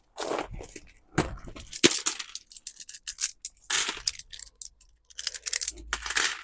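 Copper-coated steel coins snapping onto a powerful fishing magnet and clinking against it and each other: bursts of sharp metallic clicks and jingles with short pauses between.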